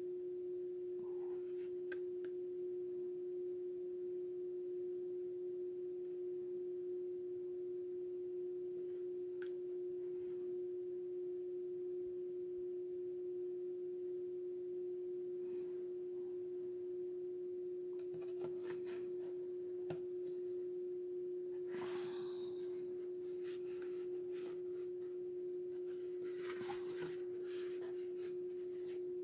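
A steady single-pitched hum, unchanging throughout, with faint scattered ticks and brief brushing or scraping sounds, the most noticeable about two thirds of the way in and again near the end.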